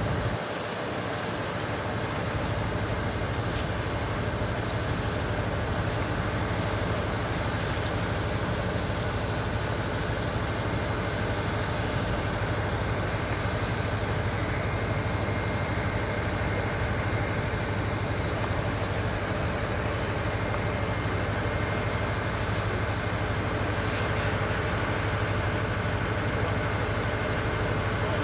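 Construction plant engines running steadily, a continuous even hum with no change in pace.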